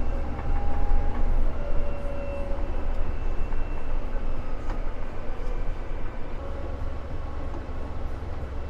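Combine harvester running steadily while harvesting wheat: a deep, even rumble.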